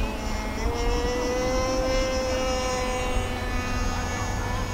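A steady motor or engine drone with a whining tone that steps up a little in pitch about a second in and then holds.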